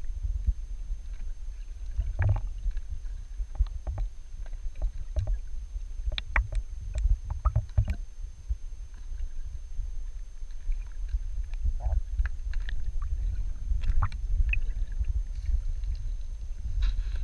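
Muffled underwater sound through a GoPro's waterproof housing in a river: a steady low rumble of moving water with scattered small clicks and ticks.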